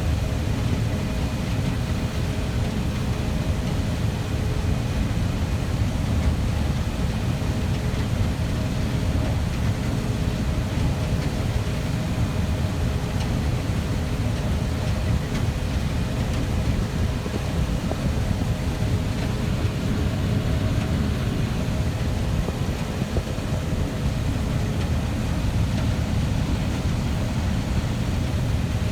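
Farm machinery running at a steady, unchanging pitch: a low rumble with a few faint steady hums on top.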